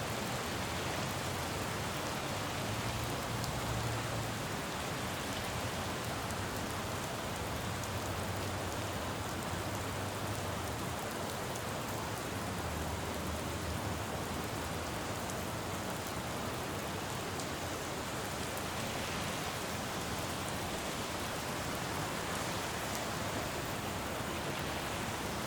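Steady rain falling on a city road, an even hiss of drops, with a low rumble of traffic swelling and fading a few times underneath.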